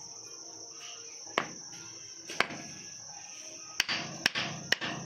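Sharp hammer knocks, about five spaced apart and coming quicker near the end, as a part is tapped into place on a wall-cutting grinder during its bearing replacement.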